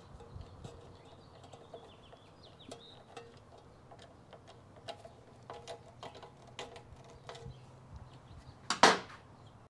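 Faint, irregular clicks and taps of hand tools and small metal motorcycle parts being handled during bench assembly, with one louder clunk near the end.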